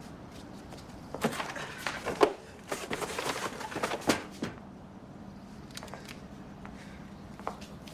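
Cardboard boxes and clutter being shoved and knocked about: a flurry of thuds and scrapes lasting about three seconds, then a few lighter knocks.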